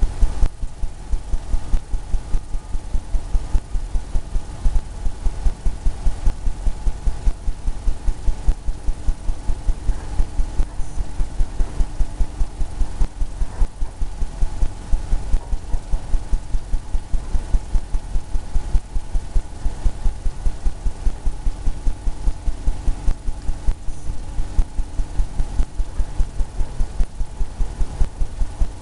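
A paintbrush dabbing against a stretched canvas, giving low, even thumps about three a second, over a steady hum.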